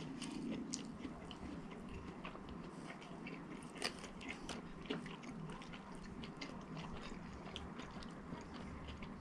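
A person chewing fast food close to the microphone: a steady run of soft mouth clicks and smacks, with one sharper click about four seconds in.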